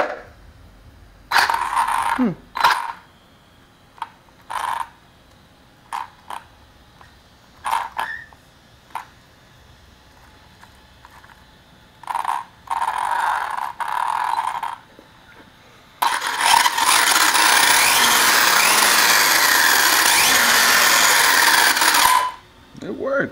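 Brushless motor and drivetrain of a 1/8 Arrma Typhon buggy on a Castle Mamba Monster 2 speed controller and 6S battery, being tested with throttle: a few short blips, then a steady run of about six seconds that stops near the end.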